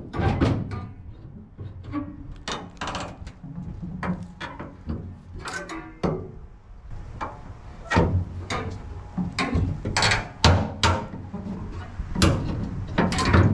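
Irregular metallic clunks and knocks from an aluminium boat hull and its steel front-wheel swing-arm frame as a person standing in the boat rocks and flexes it.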